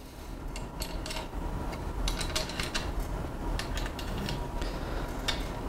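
Small metal clicks and rattles of nuts and bolts being tightened on the metal roof-rack frame, irregular and scattered, with more of them about two to three seconds in.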